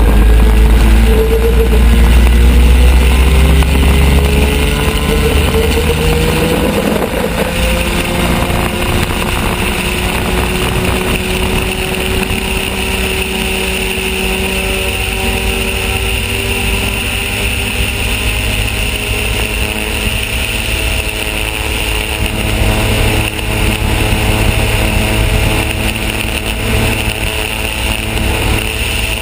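Mazda two-rotor rotary aircraft engine and propeller at takeoff power, run without turbo boost. Its pitch climbs a little over the first several seconds as the plane accelerates down the runway, then holds steady into the climb.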